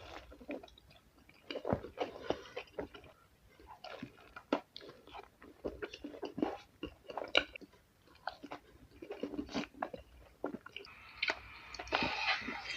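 Close-miked chewing and biting of a kebab: irregular wet crunches and mouth clicks, with a denser crackling stretch near the end.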